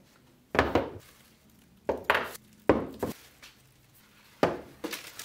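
Knocks and clatter of catch-can kit parts (a catch can, rubber hoses and metal hose clamps) being lifted from a cardboard box and set down on a wooden workbench, in several separate bursts a second or so apart.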